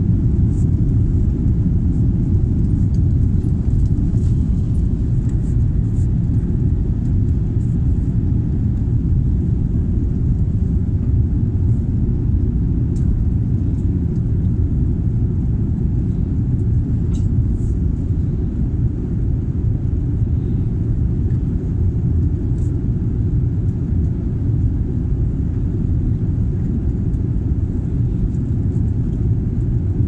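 Jet airliner cabin noise during the climb after takeoff, heard from inside the cabin: a steady, loud low rumble of the engines at climb power and the airflow.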